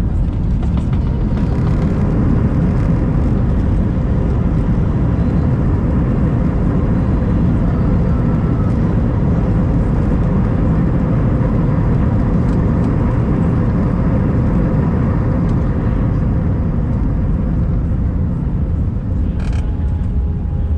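Jet airliner heard from inside the cabin on arrival: a steady, loud low rumble with faint engine tones, level throughout.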